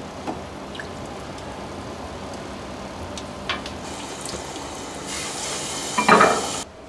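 Tap water running into a stainless-steel sink while ceramic bowls and plates are scrubbed with a sponge, with a few light clinks of dishes. The water gets louder about five seconds in, is loudest just after six seconds, then cuts off suddenly.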